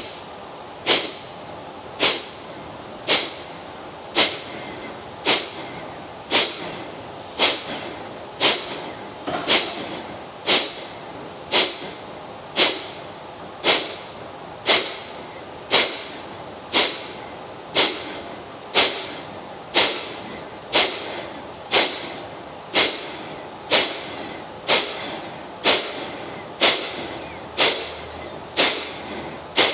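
Kapalabhati breathing: a steady run of sharp, forceful exhalations through the nose, about one a second, each a short puff of air that dies away quickly, with quiet passive inhalations between them.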